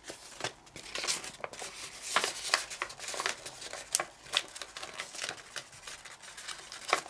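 Folded white printer paper crinkling and crackling as fingers pinch and crease its layers, a run of irregular small crackles and taps.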